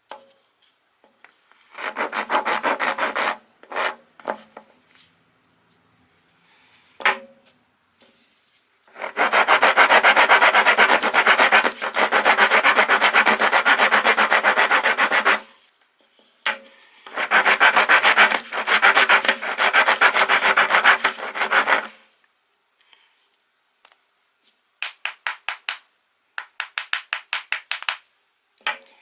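Coarse steel half-round wood rasp filing wood, in several runs of rapid strokes. The longest run lasts about six seconds, and there are pauses between runs; near the end come short, quick strokes.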